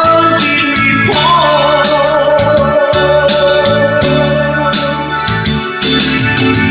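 Karaoke music from the machine's loudspeakers: a ballad backing track with a steady beat and one long held note from about a second in until near the end.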